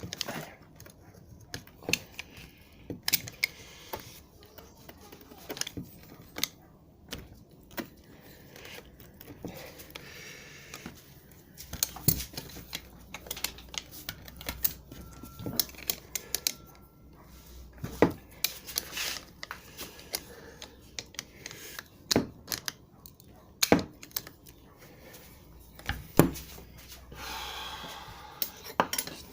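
Scattered sharp metallic clicks and knocks, with short stretches of scraping, from a homemade welded wrench turning the end plug of a steering rack until its retaining ring clicks free.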